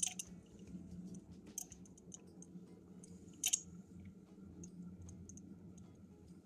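BMW N20 engine's electric coolant pump turning slowly during the cooling-system bleed, a low steady hum with scattered wet clicks and gurgles of air and coolant in the system. The two sharpest clicks come right at the start and about three and a half seconds in.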